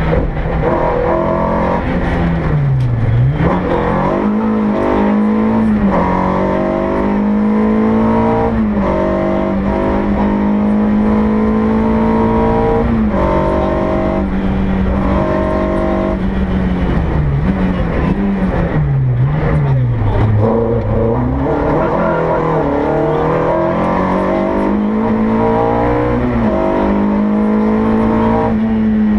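Volkswagen Golf Mk1 GTI rally car's four-cylinder engine, heard from inside the cabin, running hard at high revs. The engine note drops about three seconds in and again around eighteen to twenty seconds in, as the car slows for corners, then climbs back up.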